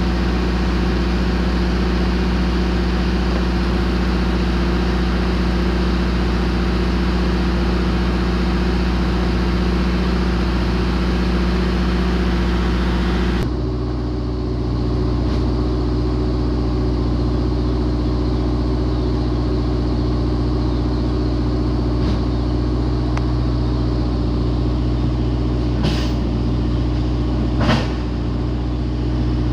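Steady low drone of an idling Sysco diesel tractor-trailer. The tone shifts about halfway through, and two short clicks come near the end.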